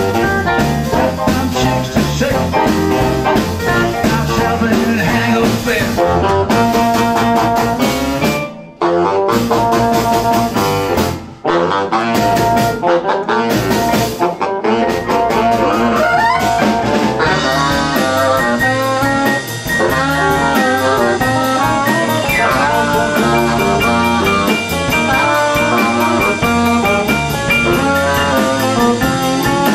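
Live garage-swing band playing an instrumental passage: a baritone saxophone leads over upright bass, hollow-body electric guitar and drums. The band cuts out briefly twice, about nine and eleven seconds in.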